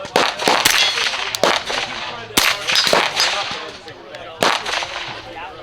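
Shots from a firearm chambered in .300 HAM'R, a cartridge described as "300 Blackout on steroids." About four loud, sharp reports come at uneven gaps of roughly one to two seconds, with fainter cracks between them.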